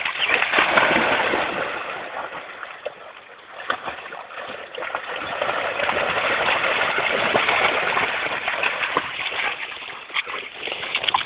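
Weimaraners splashing and paddling in pond water: a steady rush of splashing with sharp little splashes through it, dying down for a moment a few seconds in and then building again.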